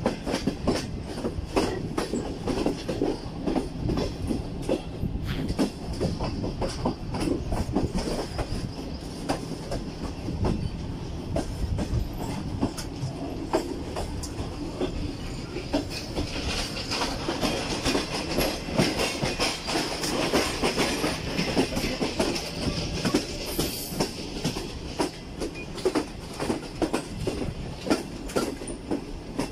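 Wheels of a Pakistan Railways passenger coach running over the track through a station yard: a steady rolling rumble with irregular clickety-clack as the wheels cross rail joints and points.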